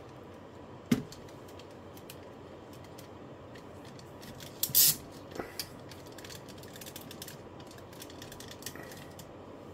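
Hard plastic parts of a robot figure being handled and fitted together: a sharp click about a second in, a short louder clatter near the middle, then a couple of lighter clicks.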